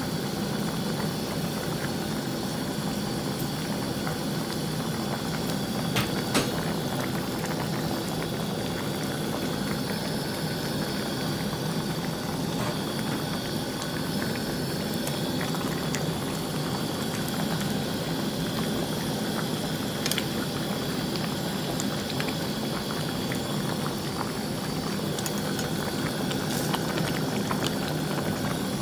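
Pot of beef and pork sinigang at a steady rolling boil, the broth bubbling, with a few sharp clicks here and there.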